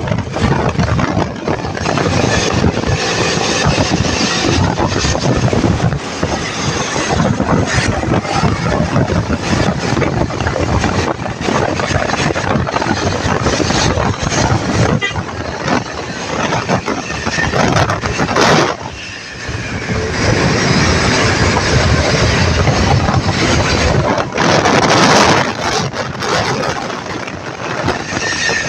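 Loud, steady road noise from moving traffic on a highway, engines and rushing wind, with a short lull about two-thirds of the way through; no horn tune sounds.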